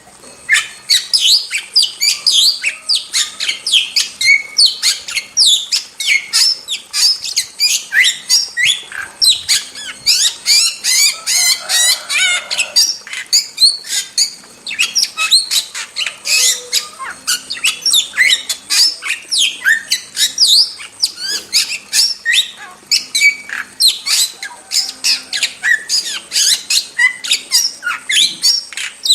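Starling (jalak) in full, nonstop song: a dense, rapid run of sharp chattering notes, squawks and short whistled slurs with hardly a pause.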